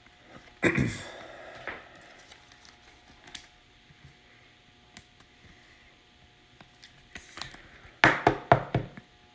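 Trading card being slid into a clear plastic card holder: faint plastic rustles and small ticks, then a quick run of sharp plastic clicks and taps near the end.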